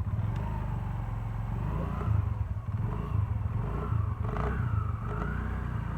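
TVS Jupiter scooter's single-cylinder four-stroke engine running just after being electric-started, with its exhaust not yet fitted, giving a steady low pulsing with some clatter.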